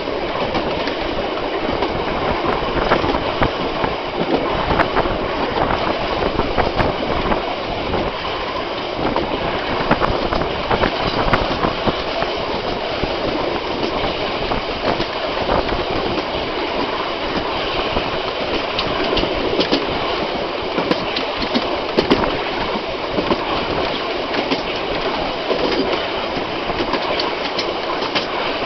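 Railway carriages running along the track, heard from the rear of the train: a steady rumble and rattle of the wheels on the rails, with many irregular clicks and knocks.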